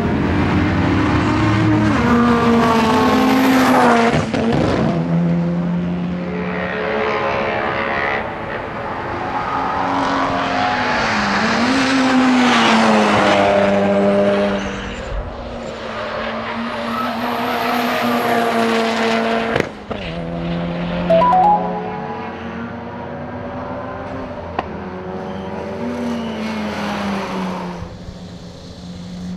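The turbocharged four-cylinder engine of a Mitsubishi Lancer Evolution VIII (CT9A) time-attack car running hard on track. Its pitch climbs through the gears and drops again as it slows for corners. The sound breaks off abruptly a few times.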